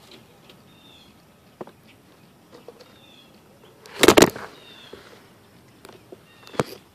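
Handling noise as the recording phone or camera is picked up and moved: a loud rustle and bump about four seconds in, a few small knocks, and a sharp click near the end. Short chirps of small birds sound in the background.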